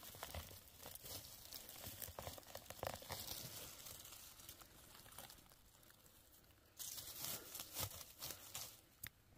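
Soft crackling and rustling of dry grass, twigs and leaf litter as a hand loosens and lifts a porcino mushroom from the ground, with a louder spell of crackling about seven seconds in.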